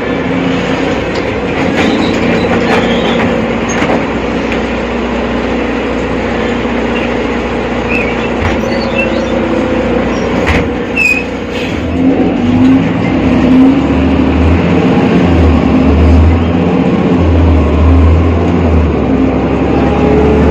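BredaMenariniBus Avancity Plus city bus with ZF transmission running on the move: a steady drivetrain hum with whining tones, some gliding up and down about twelve seconds in, and scattered knocks and rattles. In the last seven seconds a deep low drone comes and goes.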